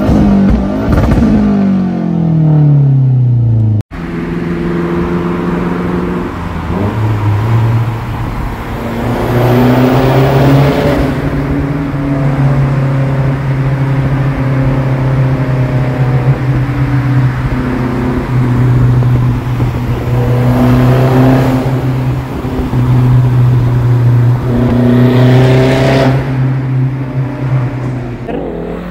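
Mazdaspeed3's 2.3-litre turbocharged four-cylinder with a CPE catted downpipe and cat-back exhaust, revved and heard from inside its cabin, the note falling back down. After a cut about four seconds in, there is a steady engine and road drone from a car following it through a tunnel, swelling loud several times.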